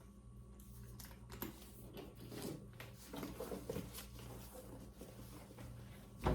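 Faint rustling and small irregular clicks of a leather handbag and its adjustable strap being handled and re-buckled, over a steady low hum.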